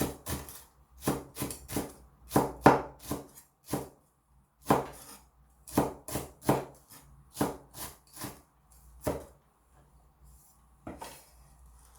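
Kitchen knife finely slicing a Korean green onion (daepa): sharp, uneven chops about two a second, stopping about nine seconds in.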